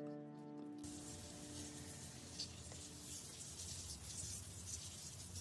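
A steady hiss of water spraying from a garden hose watering wand starts about a second in. The last marimba-like notes of background music fade out beneath it over the first few seconds.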